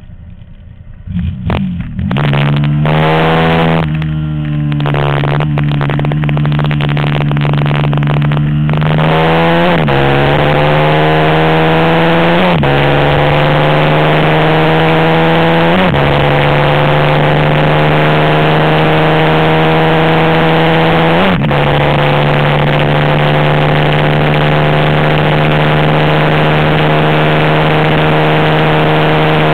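Onboard sound of a 450-class racing motorcycle engine running hard on track, with wind rush over the microphone. It jumps up to full throttle about a second in, its pitch climbing under acceleration and dropping sharply at each of about four gear changes, then holding steady at high revs for the last several seconds.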